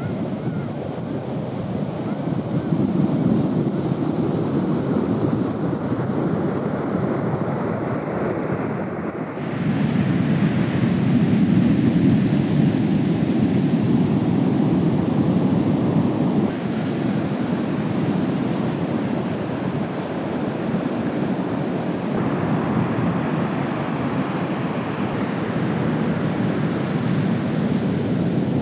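Pacific Ocean surf: a continuous rush of waves breaking and washing ashore, stepping up suddenly in loudness about nine seconds in.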